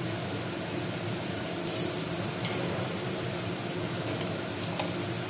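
Salt being sprinkled onto raw crab pieces in a steel bowl: a few short, hissy bursts over a steady low background hum.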